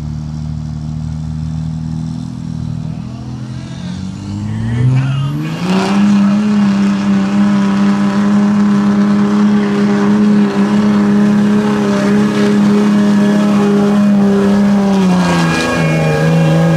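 2006 Dodge Ram's Cummins turbo-diesel engine running low, then revving up about five seconds in and held at a steady high pitch under full load while it drags a pulling sled. The pitch dips and rises again near the end.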